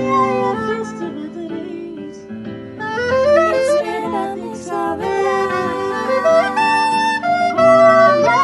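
Live music: a saxophone plays melodic lines with quick rising runs over an accompaniment.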